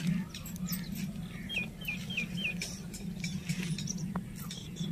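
A small bird chirps four times in quick succession, over scattered sharp clicks and crackles and a steady low hum.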